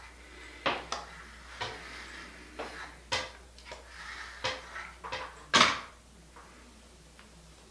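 Hard plastic clicks and clacks of a flat iron and comb being handled, about ten irregular knocks over five seconds, the loudest near the end.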